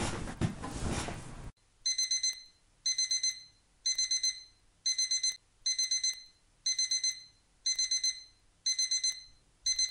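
Electronic alarm beeping in quick bursts of about four beeps, repeating roughly once a second, like a digital alarm clock going off. A second and a half of noisy hiss comes before it.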